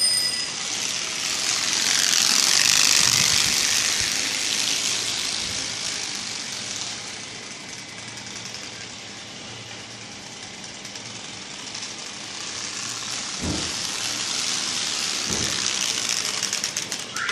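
Playing card taped to a bicycle, flapped by the spokes as the wheel turns: a rapid rattling buzz like a small motorcycle. It grows loud as the bike passes about three seconds in, fades, and swells again near the end.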